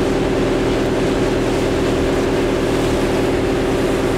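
Cargo boat's engine running steadily under way, a fast even pulsing throb, with the rush of water and wind over it.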